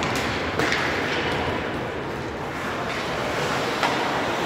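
Ice hockey play in an arena: a steady wash of rink noise from skates on the ice, with a few sharp clacks of sticks or puck, the clearest about half a second in and again near the end.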